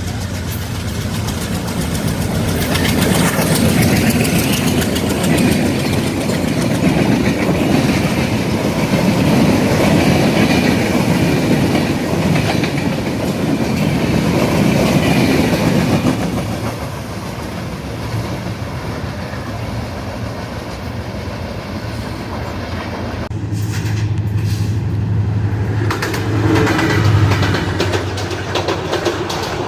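Diesel-hauled passenger train running past, its wheels clacking over the rail joints. The sound is loudest over the first half, eases off at about 16 seconds, and changes abruptly at about 23 seconds to a steady low hum.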